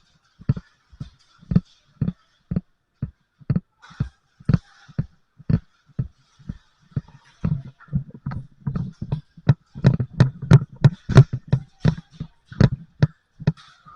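Footsteps of a player on the move, about two thuds a second. They come faster and louder in the second half, with sharper clicks mixed in.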